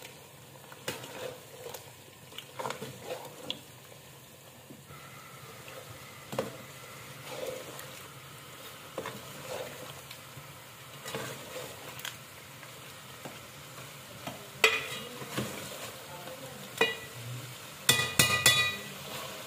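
Metal ladle stirring and scraping chicken pieces cooking in masala in a metal pot, over a low sizzle, with frequent clinks of the ladle against the pot. Near the end there is a quick run of louder, ringing metal knocks.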